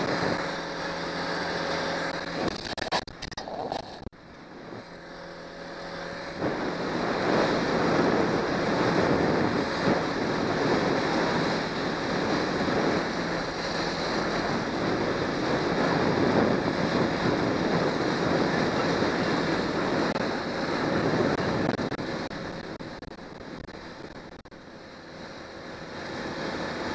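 Motorboat under way, powered by a Johnson 90 hp outboard: wind on the microphone and water rushing against the hull over the steady hum of the motor. The rushing dips a few seconds in, then builds again and holds.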